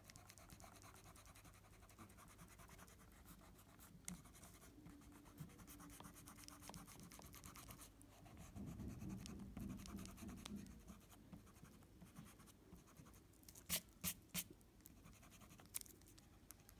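Faint, fast rubbing of a Faber-Castell eraser on drawing paper, erasing pencil guide lines, with a few sharp clicks near the end.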